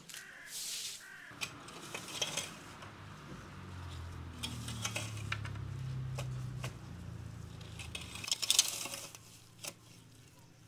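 A straw broom sweeps briefly across a tiled floor, then a garden rake scrapes and clinks through soil, stones and weeds, with a loud rustling stroke through dry grass a little before the end.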